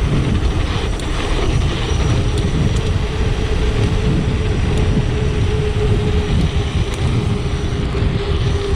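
Wind buffeting the microphone and tyre roar from a dirt jump bike descending a hill at speed, with a steady hum over it.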